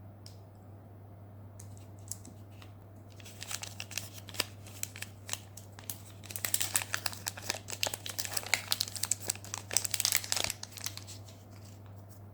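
Candy wrapper being crinkled and handled for unwrapping: a few light crackles at first, then a long stretch of dense crinkling that grows louder before dying away near the end. A steady low hum sits underneath.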